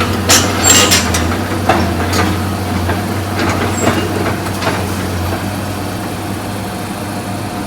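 Diesel engine of a CAT excavator running steadily, with a few sharp knocks in the first couple of seconds.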